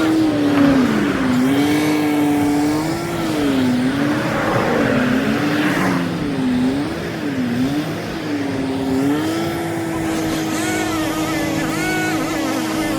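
A motor vehicle on the road, with a loud pitched hum that dips and rises several times, then holds steady for the last few seconds.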